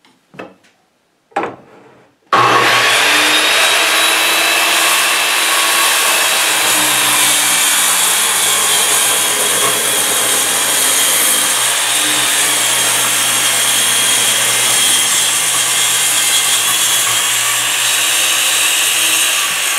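Handheld circular saw starting up about two seconds in and ripping steadily through a thick oak table top. Its whine drops near the end as the saw winds down after the cut.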